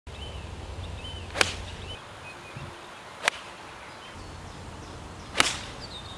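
Golf club striking a golf ball on full swings: three sharp cracks about two seconds apart.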